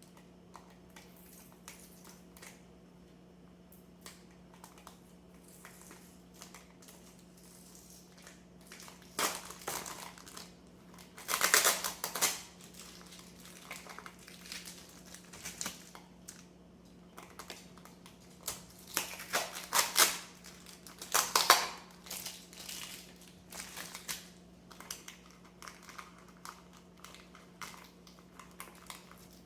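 Plastic packaging and tape crinkling and rustling as a potted orchid is unwrapped by hand, in irregular bursts with a few louder crackling handfuls, over a steady low hum.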